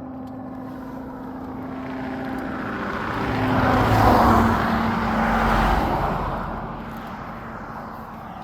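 GS1300 motorcycle with a double shotgun exhaust, running steadily at first, then swelling to a loud peak about four to six seconds in and fading away again.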